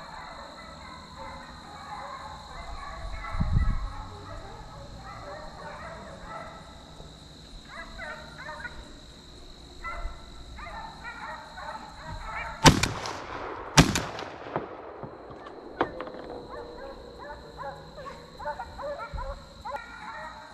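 Hunting hounds baying on and off in the woods during a deer drive. About two-thirds of the way through, two shotgun shots a second apart, each echoing, then a fainter shot about two seconds later.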